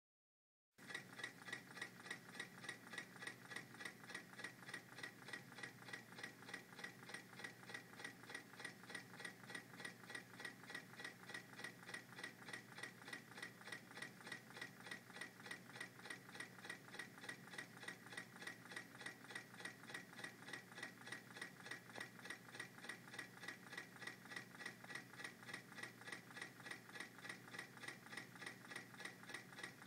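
American Stirling Company MM5 Stirling engine running on a mug, its mechanism giving a faint, steady, rapid ticking that starts about a second in.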